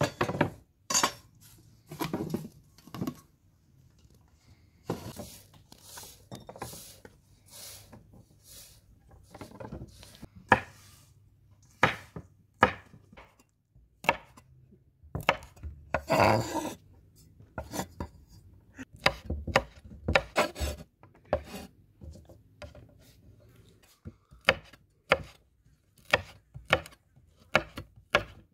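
Large kitchen knife chopping fresh green beans on a wooden cutting board: a string of irregular sharp knocks of the blade striking the board.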